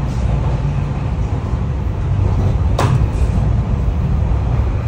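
Interior running noise of a 413/455-series AC/DC electric train: a steady low rumble of wheels and car body on the rails while it runs through the dead section of the line. A single sharp clack comes about three seconds in.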